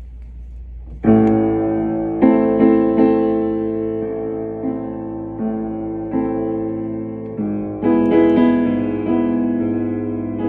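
Kawai upright acoustic piano played by hand: a slow run of chords, the first struck about a second in, each ringing out and fading before the next.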